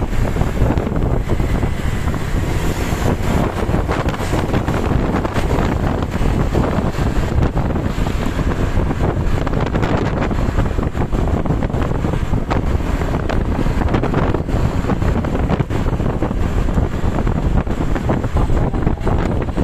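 Heavy wind buffeting the microphone over the steady rumble of a moving vehicle.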